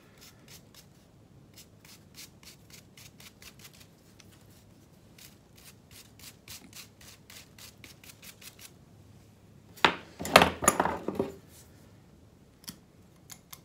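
A bonsai root hook scraping and raking through the soil and roots of a root ball as the roots are teased out, a quick run of short scratchy strokes. A louder burst of scraping comes about ten seconds in, and two single clicks follow near the end.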